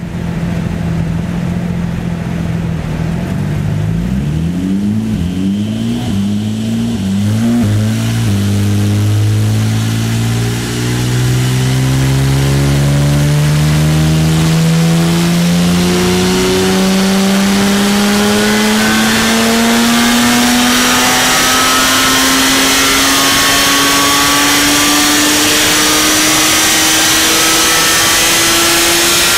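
Porsche 911 GT3 (992) 4.0-litre naturally aspirated flat-six breathing through a full Akrapovic titanium exhaust (headers with sport catalysts and Race Line muffler), running on a dyno. It idles, then gives a few quick throttle blips about four seconds in, then makes one long dyno pull with the pitch climbing steadily for some twenty seconds.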